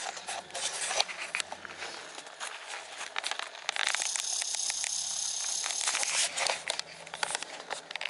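Leaves and twigs brushing and crackling against a handheld camera as it pushes through a leafy shrub. The rapid crinkly crackles give way to a steadier rustling hiss for a couple of seconds in the middle.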